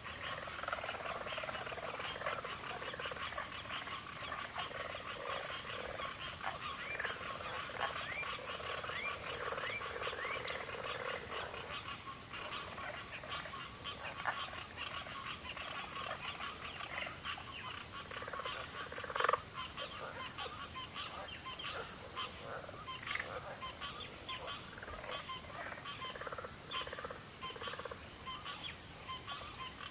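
Crickets at twilight trilling in a steady, unbroken high-pitched chorus, with many short chirps and calls from other animals scattered lower down.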